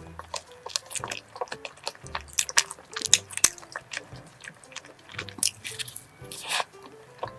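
Biting and chewing of a cream-filled cone croissant, the crisp pastry giving many short crunches, over soft background music.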